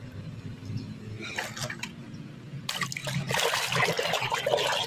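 Soapy water and foam squelching and crackling as a hand scrubs a small plastic toy in a basin. There are a few faint splashes at first, then the wet crackling gets much louder and busier from nearly three seconds in.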